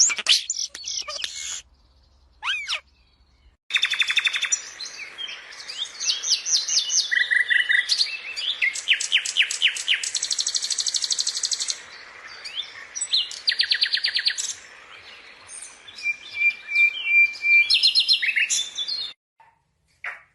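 Songbirds singing: a varied run of high chirps, fast trills and rapid repeated notes, broken by a pause of about a second and a half near the start.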